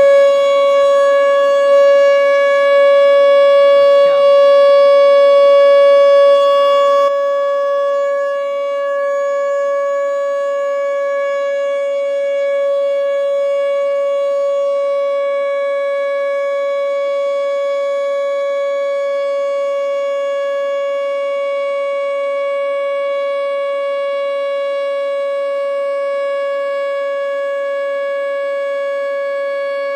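American Signal T121 outdoor warning siren sounding a steady, unwavering alert tone, a steady-tone test of the siren's 3-minute alert signal. It gets somewhat quieter about seven seconds in, then holds.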